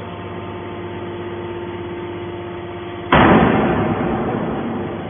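Y81-250 hydraulic scrap metal baler running with a steady hum. About three seconds in, a sudden loud burst of noise starts and fades over about two seconds.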